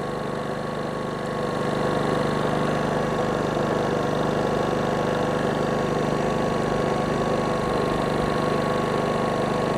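Westinghouse iGen4500 inverter generator's gasoline engine running steadily as it warms up after a push-button start. It gets slightly louder about a second and a half in, then holds an even hum.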